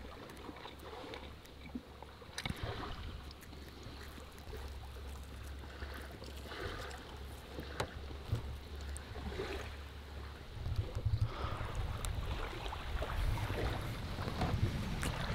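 Faint outdoor ambience on a boat: a low rumble of wind and water, with scattered small clicks. The rumble grows louder about ten and a half seconds in.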